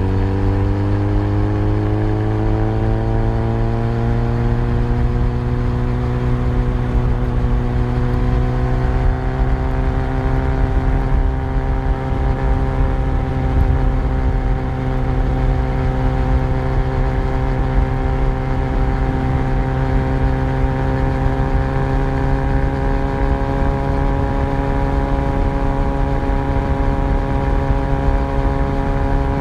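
Yamaha FZ1's inline-four engine under way, its pitch rising as the bike accelerates over the first several seconds and then holding steady at a constant cruising speed. Low wind and road rumble run underneath.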